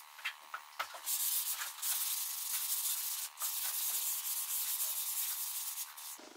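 Hand sanding a bare knotty-pine tabletop: abrasive rubbed over the wood in scratchy strokes with brief pauses and a few light ticks early on. It stops shortly before the end.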